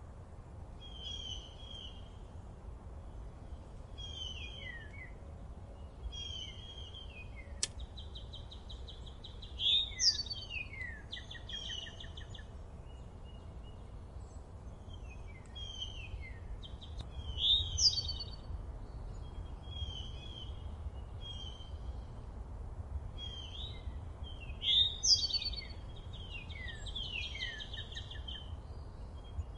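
Small songbirds chirping: short phrases with quick falling notes, repeated every second or two, with louder, fuller songs about ten, eighteen and twenty-five seconds in. A steady low rumble lies underneath, and there is a single sharp click a little before the first louder song.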